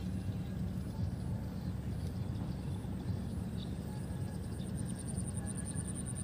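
Steady low hum of a distant motor, with a faint, thin, high pulsing tone over it.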